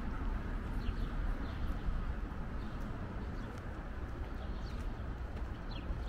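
Outdoor city ambience: a steady low background rumble with a few short, high, falling bird chirps scattered through it.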